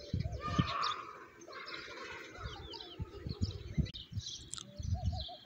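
Many small birds chirping and twittering, with scattered low thuds and gusts on the microphone.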